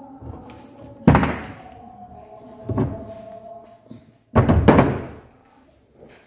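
Heavy metal thunks as a motorcycle engine crankcase and tools are handled on a workbench stand. There are three knocks, about one, three and four and a half seconds in. The first is the sharpest; the last is longer, ringing on for nearly a second.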